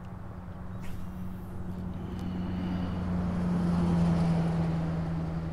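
Distant engine drone over a steady low hum, swelling to its loudest about four seconds in and then fading, as a motor passes by.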